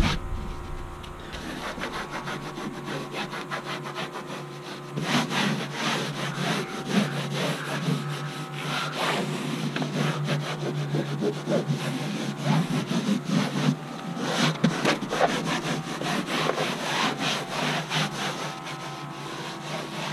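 Hands rubbing and pressing glue-wet canvas down onto the camper's wooden side, an irregular run of scraping strokes as the fabric is smoothed and worked flat.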